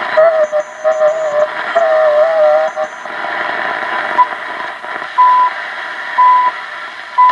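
Hallicrafters S-38 tube receiver's speaker giving shortwave static, with a wavering whistle for the first few seconds as it is tuned. From about five seconds in, short beeps sound once a second, which may be the Canadian time signal.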